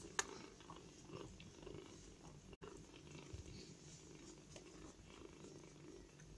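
Faint purring of a domestic cat, with a light click shortly after the start.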